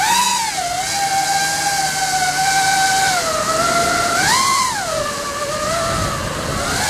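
Brushless motors and five-blade 5045 props of a 5-inch FPV racing quadcopter (RCINPOWER GTS 2205 2350KV on 4S) whining, heard up close from the camera mounted on the craft. The whine jumps up in pitch right at the start and again about four and a half seconds in as the motors spin up, then settles back each time.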